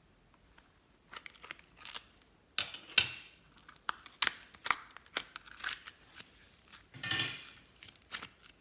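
Close-up handling sounds of slime-making materials: a quick run of sharp clicks, snaps and crinkles, loudest about three seconds in, with a rustling scrape near the end.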